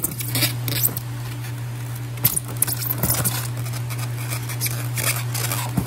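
Scattered clicks and crackling rustles of live lobsters being handled and set into a plastic-lined styrofoam cooler with cardboard dividers, over a steady low machine hum.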